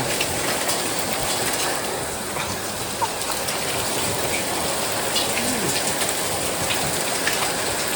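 Heavy rain pouring down steadily in a thunderstorm.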